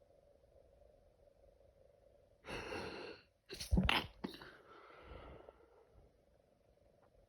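A person sneezing from allergies: a noisy gasping in-breath about two and a half seconds in, then a sharp, loud sneeze, a short second burst and a fading breath out.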